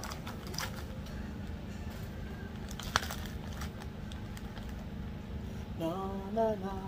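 Plastic zip-top bag of pink Himalayan salt being handled and worked open, with a single sharp click about three seconds in. A steady low hum runs underneath, and a short sung or hummed voice comes near the end.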